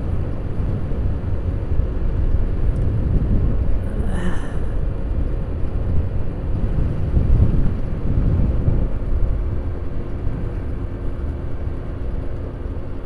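150cc scooter riding down the road, with wind rumble on the microphone over the faint engine note. A short high-pitched sound cuts through about four seconds in.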